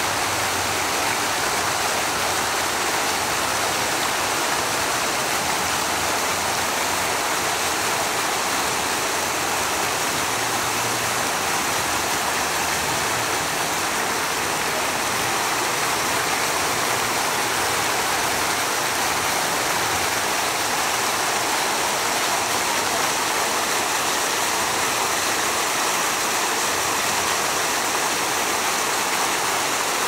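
Rows of fountain jets splashing back into a pool: a steady, even rush of falling water.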